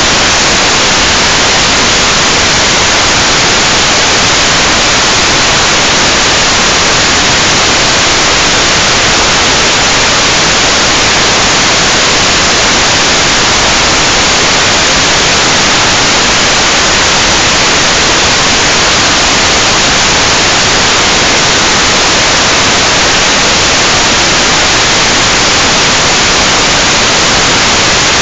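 Loud, steady static hiss from an analog FPV video receiver with no signal: nothing is coming in from the quad's video transmitter. The hiss is even and unbroken.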